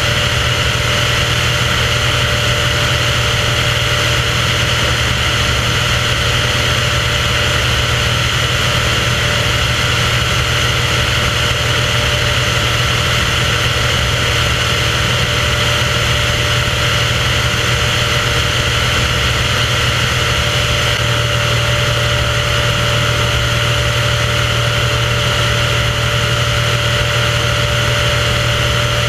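Steady drone of a small aircraft's engine and propeller, heard from a camera on board. The pitch stays even throughout.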